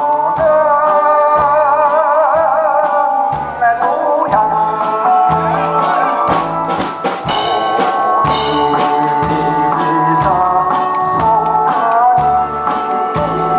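A man singing into a microphone over backing music with a steady bass and drum beat.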